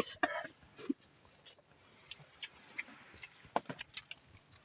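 Faint, irregular chewing and lip-smacking of someone eating chicken by hand, with a few louder smacks a little past the middle.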